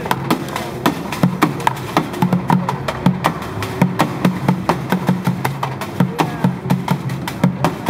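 Street drummer playing upturned plastic pails and plastic water containers as a drum kit: a quick, steady rhythm of sharp, hollow hits, over a steady low hum.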